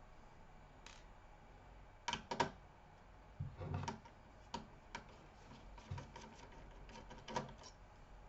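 Light, irregular clicks and taps of a screwdriver and small screws being worked loose from a laptop's CPU heatsink and set down, with a few sharper knocks about two, four and seven seconds in.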